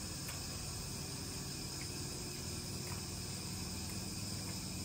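Steady hum and hiss of a running dishwasher, with a faint high whine.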